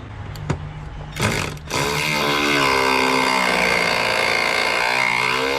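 A couple of clicks, then a 1/4-inch drive power tool's motor running hard for several seconds, its pitch sagging and recovering under heavy load as it works a seized bolt loose.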